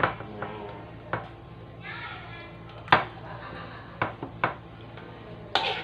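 Sharp knocks and clinks against a glass baking dish as whole sea bass are handled and turned in it, about seven in all, the loudest about three seconds in and near the end.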